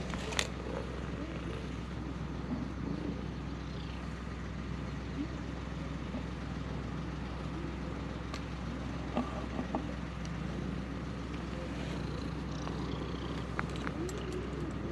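Cat purring steadily while its back is stroked by hand, over a steady low outdoor rumble, with a few light clicks.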